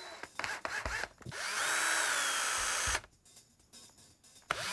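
Power drill with a 1/8-inch bit drilling pilot holes in the metal ski bracket. A few clicks, then the drill runs for about a second and a half with a high whine, stops about three seconds in, and starts again near the end.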